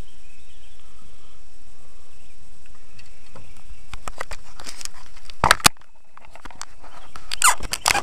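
Steady outdoor background noise, then from about four seconds in a run of sharp knocks, clicks and rustles from handling in a kayak, loudest near the end.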